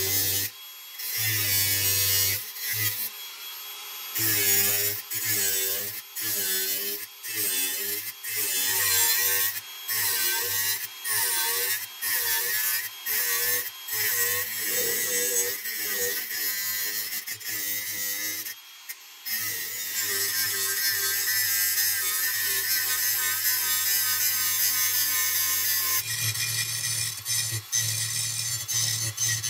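Angle grinder with an abrasive disc grinding the edge of a clamped brass plate. It works in short passes about once a second, with the motor's pitch wavering as the disc bites. About twenty seconds in, it settles into one long continuous pass.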